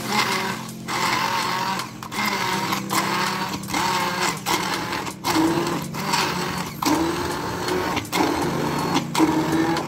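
Immersion hand blender running in a plastic beaker, its motor whirring steadily as the blade chops through a chunky mixture, with brief dips in the sound every one to two seconds.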